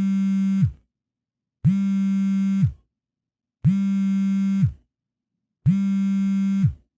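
Phone ringing tone on an outgoing call: a buzzy electronic tone about a second long, repeating every two seconds with silence between, four times, each one dropping in pitch as it cuts off.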